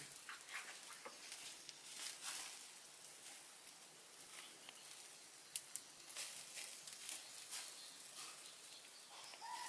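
Faint crackling and popping of a fire scorching a pig's skin, with one sharper pop about five and a half seconds in.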